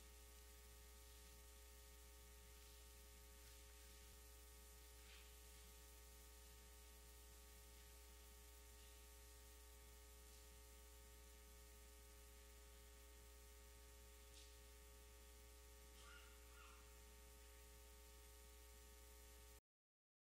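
Near silence: room tone with a steady electrical hum and a few faint small noises. The sound cuts out completely just before the end.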